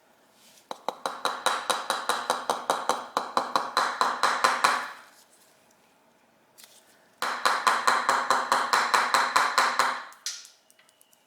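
Rapid light hammer taps on a metal carburettor body with a ringing note, in two runs of about five taps a second, knocking loose a seized carburettor cover.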